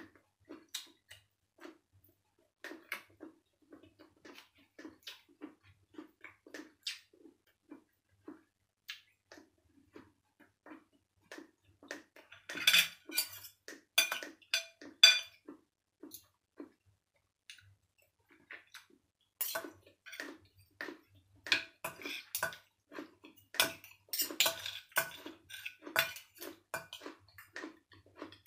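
Eating up close: steady chewing, and a metal fork and spoon clinking and scraping on ceramic plates. The clinks come in two busy stretches, about halfway through and again in the last third, loudest around the middle.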